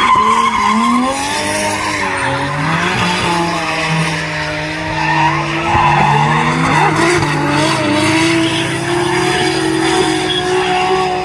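Drift cars sliding sideways through a corner, engines revving hard and tyres squealing. The engine pitch swings up and down, then holds high and fairly steady in the second half.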